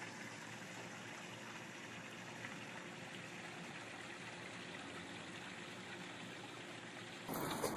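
Faint, steady rushing of water, with no distinct events in it. About seven seconds in, a louder, busier sound suddenly takes over.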